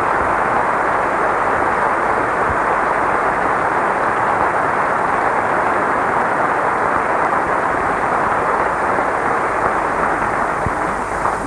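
Steady, loud rushing noise with no pitch or rhythm, a dense roar that eases off slightly near the end.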